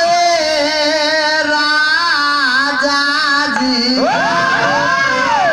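Live Bhojpuri stage music: a melody held in long, wavering notes, then sweeping up and down in pitch from about four seconds in.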